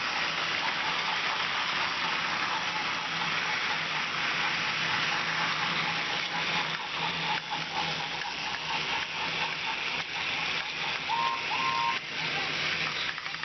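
Battery-powered Trackmaster toy train engines running on plastic track: a steady electric motor whir with the hiss of gears and wheels on the plastic rails. A pair of short high beeps sounds about eleven seconds in.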